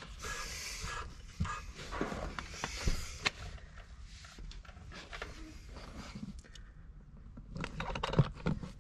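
STM primary clutch being turned by hand on the crankshaft taper with valve lapping compound between the tapers: a scraping noise as the two tapers are lapped to mate. It stops a few seconds in, and a few light clicks and knocks of handling follow near the end.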